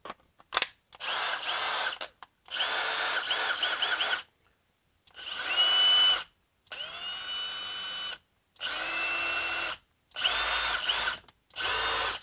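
Milwaukee 2853-20 brushless cordless impact driver, rebuilt with a half-inch anvil, spinning freely with no load in about seven short trigger pulls. The motor whine rises as each pull starts and stops between pulls, as the freshly reassembled tool is test-run.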